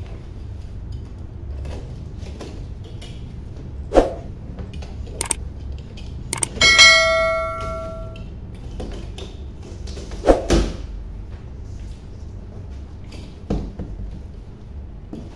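Large cardboard box being opened by hand: packing tape pulled off and the flaps knocked and folded back, with several knocks and thumps. About seven seconds in, one bell-like ring lasting over a second is the loudest sound; a steady low hum runs underneath.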